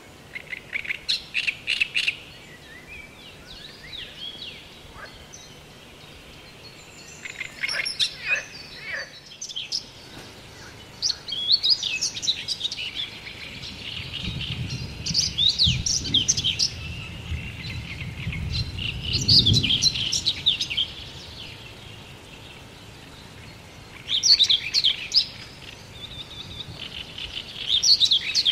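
Small songbirds singing: repeated bursts of quick, varied chirping and warbling phrases, some overlapping. A low rumble rises beneath them around the middle and fades again.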